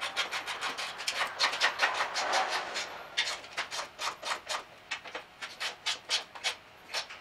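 Ratchet clicking in quick runs as towbar mounting bolts are tightened, several clicks a second with short pauses between strokes, getting quieter in the second half.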